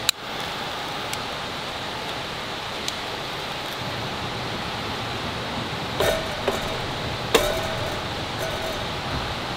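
An aluminium mess tin clinks three times against a wire grill as it is set down over burning solid fuel, metal on metal with a short ring. A steady soft hiss runs underneath, and a sharp click comes right at the start.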